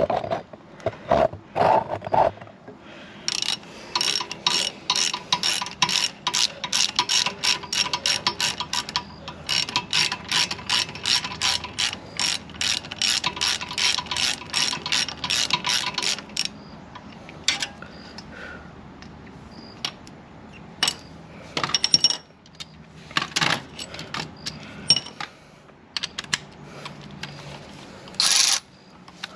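Hand ratchet clicking in a fast, even run of about three to four clicks a second, as it is worked on a 5 mm Allen bit to loosen a brake caliper slide pin. The run stops about halfway through, followed by scattered single clicks and knocks.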